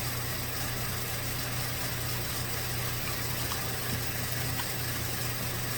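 2016 Volkswagen 1.8 TSI four-cylinder engine idling steadily while misfiring on cylinder 4, which the mechanic thinks is caused by engine oil leaking into the number 4 intake port. A couple of faint ticks come about midway.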